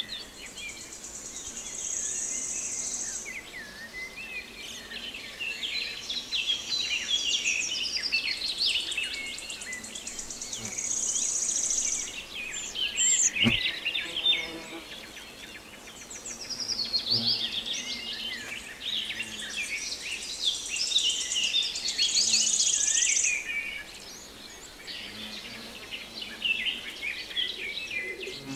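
Several songbirds chirping and singing over one another in a busy, overlapping chorus, with a high, buzzing trill that comes in three times for a second or two each. A single sharp click sounds about halfway through.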